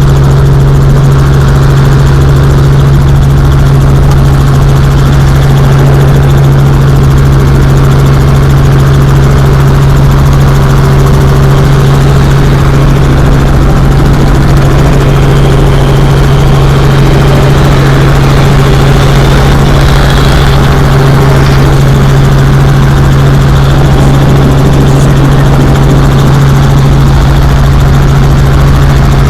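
Tour helicopter running steadily: a loud, unchanging low hum with dense engine and rotor noise.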